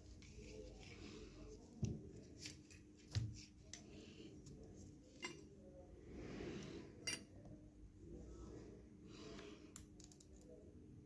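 Faint handling noises from the opened portable inverter being worked on: a few light knocks and clicks, the strongest about two and three seconds in, with soft rustling between.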